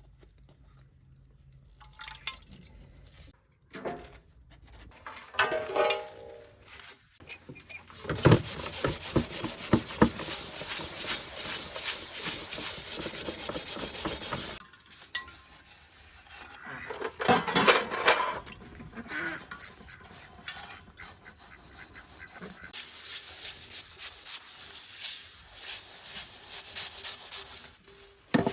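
Hand scrubbing and rubbing of dishes with water, with a long steady stretch of scrubbing in the middle and a few clatters of the dishes later on.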